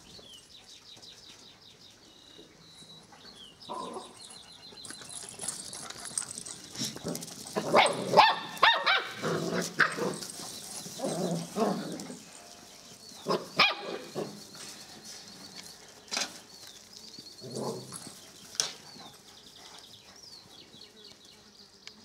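Lapponian herder puppies barking and yipping at play in short scattered bursts, busiest and loudest around eight to twelve seconds in.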